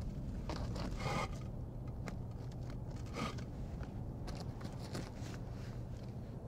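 Outdoor background noise: a steady low rumble with scattered faint clicks, and two brief scraping rustles about one second and about three seconds in.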